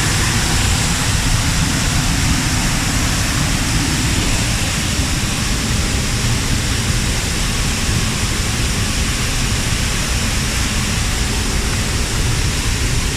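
Waterfall's rushing water: a loud, steady noise with a deep rumble underneath that does not change.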